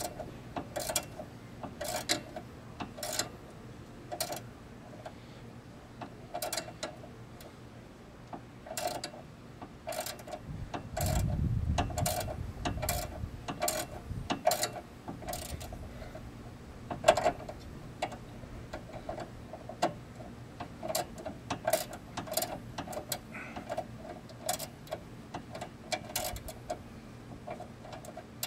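Hand ratchet clicking in short, irregular strokes, about one to two clicks a second, each with a light metallic ring, as a suspension nut on the car's front corner is turned.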